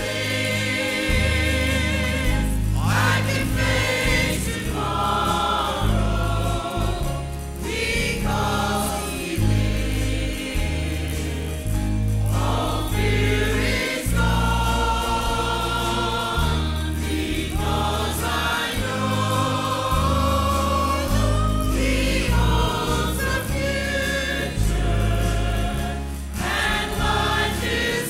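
Mixed church choir singing a hymn with piano and guitar accompaniment, over a bass line that steps from note to note.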